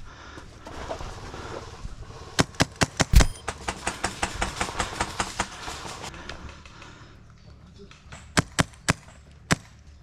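Airsoft guns firing: a few single shots about two and a half seconds in, then a rapid string of shots for about three seconds, and a few more single shots near the end.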